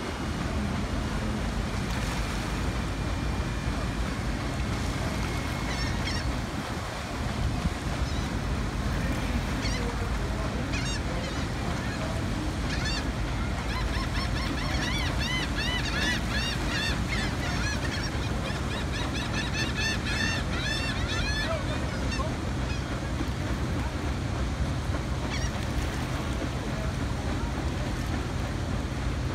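A steady wash of wind and river water. From about six seconds in until about twenty-two seconds, birds give a quick run of short honking calls, several a second, that rise and fall in pitch.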